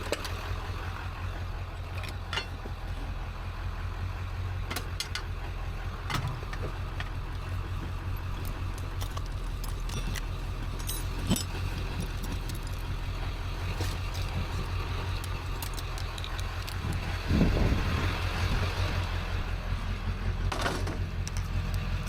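A vehicle engine idling steadily with a low hum, with scattered sharp clinks of metal and a louder knock about seventeen seconds in.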